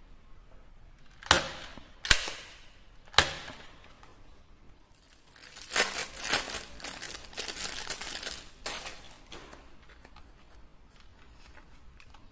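Three sharp plastic clicks or snaps, about a second apart, then plastic toy packaging crinkling and tearing for a few seconds.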